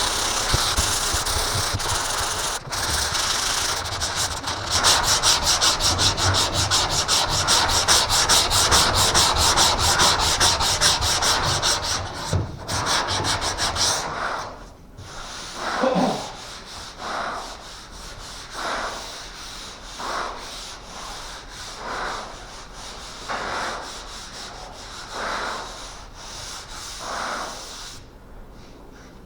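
Sanding block rubbing over guide-coated body filler on a car panel. About 14 s of fast, continuous sanding, then slower separate strokes about one a second. Hand blocking the filler to show up its low spots.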